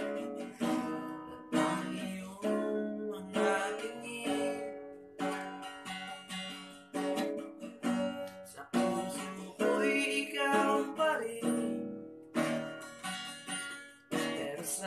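Cutaway acoustic guitar strummed in chords, with short breaks between phrases every couple of seconds.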